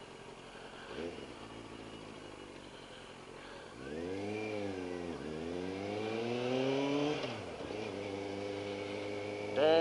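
2001 Triumph TT600's inline-four engine under way: a low steady run, then about four seconds in the revs rise and dip, climb for about two seconds, and drop back before settling to a steady note.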